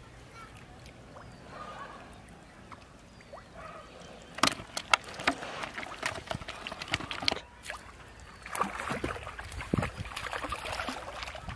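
Pond water splashing and gurgling as a hooked fish is pulled up to the surface on a rod and line, with a few sharp knocks about four to five seconds in.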